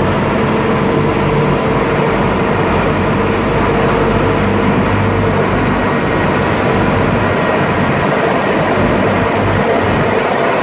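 Engine of an amphibious Duck tour vehicle running steadily as it cruises on the lake, a constant drone with a steady hum and rushing noise.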